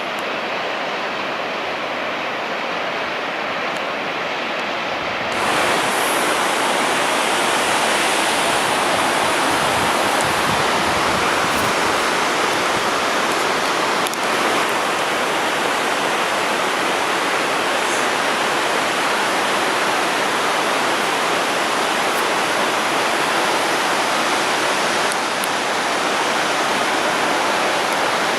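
Rushing water of a mountain stream or waterfall, a steady hiss that steps up louder about five seconds in.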